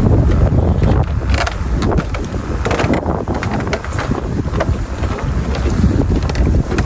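Wind buffeting the microphone: a steady, loud low rumble with irregular crackling gusts.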